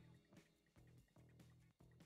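Faint background music with pitched notes starting in a steady rhythm.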